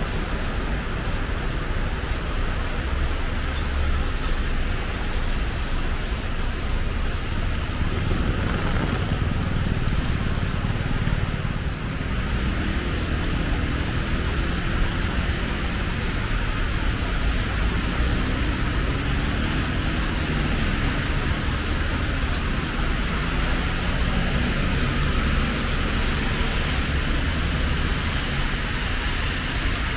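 Heavy rain falling, with cars passing on the wet road: a steady hiss of rain and tyre spray over a low engine rumble.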